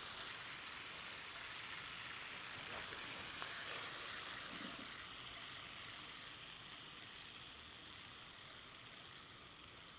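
Fidget spinner spinning fast after a flick, giving a steady high whirring hiss from its ball bearing that slowly fades as it spins down.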